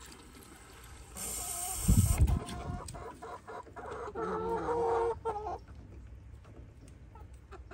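Chickens clucking, with one longer call about four seconds in. A brief hiss and a low thump come about a second or two in.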